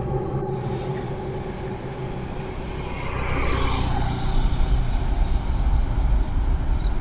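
Dark ambient horror drone: a low rumble that swells with a whoosh about three seconds in, then deepens into a heavy rumble.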